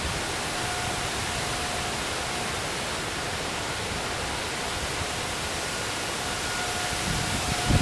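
Steady hiss of a storm downpour, with a distant outdoor warning siren faintly holding one pitch and fading in and out. Near the end, gusts of wind buffet the microphone with low rumbles.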